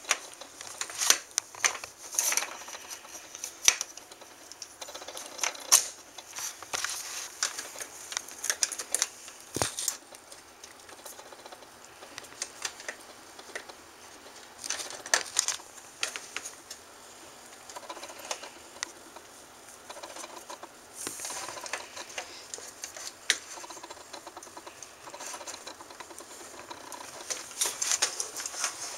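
Plastic casing and internal parts of a wireless Xbox 360 controller being handled and fitted back together: irregular small clicks, taps and rattles, busier near the start and again near the end.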